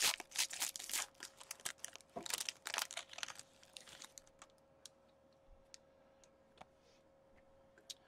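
Foil trading-card pack wrapper being torn open and crinkled, crackling in quick bursts for about the first three seconds. A few light clicks follow as the cards are handled.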